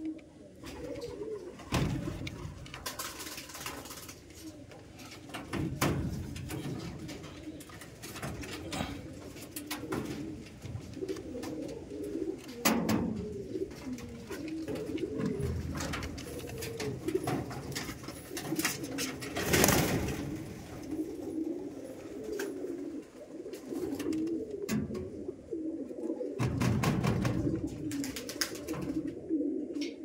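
Domestic pigeons cooing continuously, their low warbling coos overlapping. A few brief, louder bursts of rustling noise break in at intervals.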